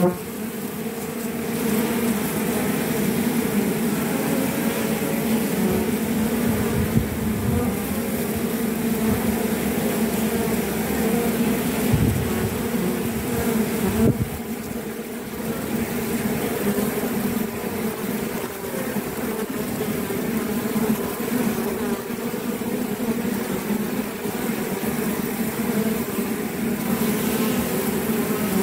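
Honeybees buzzing at a hive entrance: a steady, dense low hum of many beating wings, with a couple of brief low bumps about twelve and fourteen seconds in.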